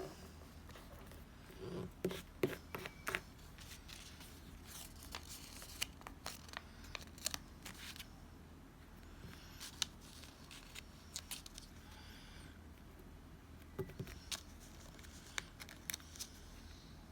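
Close-up paper and stationery handling while laying out a planner page: scattered sharp clicks and taps with short bursts of paper rustling and tearing, clustered near the start and again near the end.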